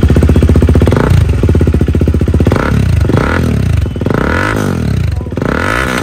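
KTM RC 390's single-cylinder engine, fitted with an aftermarket slip-on exhaust, revved by hand on the stand for a sound check. Rapid, steady exhaust pulses at first, then several quick throttle blips, each rising and falling in pitch.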